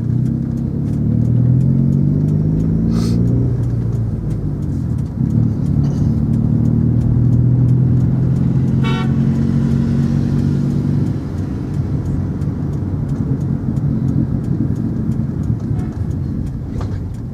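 Car engine pulling away, its pitch rising over the first few seconds, then running steadily, with a short horn toot about nine seconds in.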